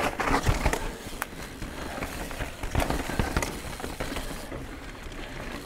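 Canyon Spectral 29 CF 9 mountain bike riding fast down a dirt singletrack: a steady rush of tyres rolling over dirt, with irregular knocks and clicks as the bike goes over bumps.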